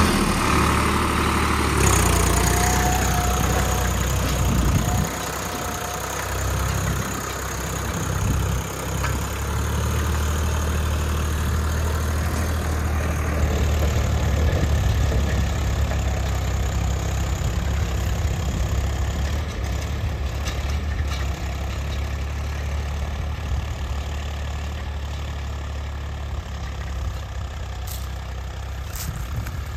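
Swaraj 855 4x4 tractor's three-cylinder diesel engine running steadily under load while pulling an 11-tine cultivator in second medium gear.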